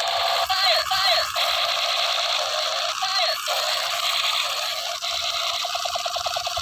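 Battery-powered toy space gun playing its electronic firing sound effect through a small speaker: a continuous buzzing tone with short chirping glides. Near the end it turns to a fast pulsing.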